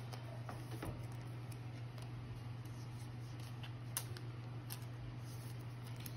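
Faint clicks and light rustles of glossy trading cards being picked up and laid onto stacks, over a steady low hum. One sharper tick stands out about four seconds in.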